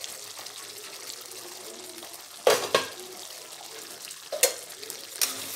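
Chicken karahi gravy sizzling steadily in a steel kadai, with a few sharp metal clinks against the pan, two close together about two and a half seconds in and two more near the end.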